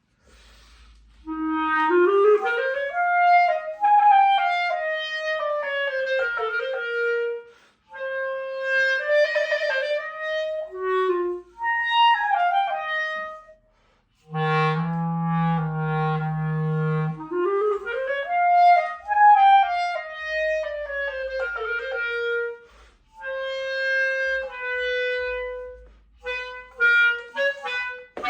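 Solo clarinet playing melodic phrases with quick upward runs and short pauses between them, and a low held note about halfway through.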